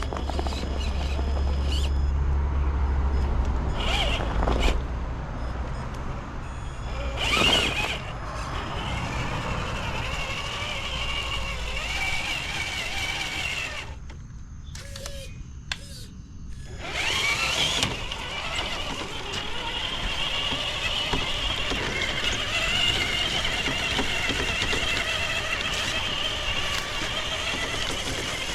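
Traxxas TRX4 RC crawler's electric motor and geared drivetrain whining, with diff lockers engaged as it climbs a rocky trail. The high whine wavers with the throttle, drops out briefly about halfway, then carries on, with a few knocks over rough ground.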